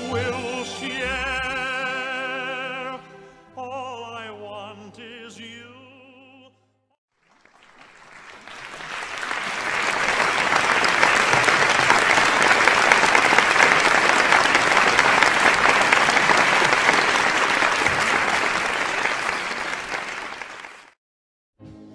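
Operatic singing with a strong vibrato, its last phrase ending about six seconds in. After a brief silence, applause swells up and holds for about thirteen seconds, then cuts off suddenly near the end.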